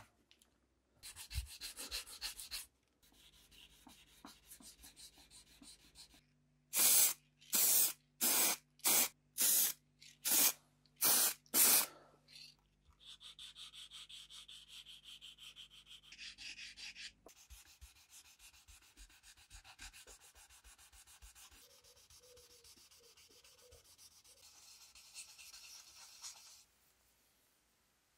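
Hand sanding of a painted steel can-opener handle: back-and-forth rubbing strokes in several short stretches, taking the paint back off the flat of the handle. The loudest stretch is a run of seven long, even strokes in the middle, followed by quicker, fainter strokes.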